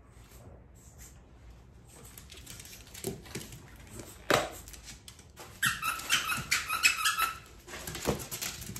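Squeaky dog toy squeezed in a quick run of high squeaks lasting about two seconds, after a couple of sharp knocks and some rustling.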